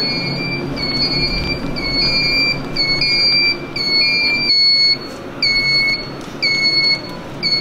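The reverse-warning beeper of a motorized store mobility scooter, sounding one high electronic beep after another a little faster than once a second, with a low hum underneath.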